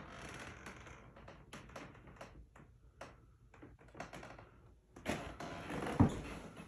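Footsteps and small knocks on a hardwood floor in a small room, scattered irregularly, with one sharper thump about six seconds in.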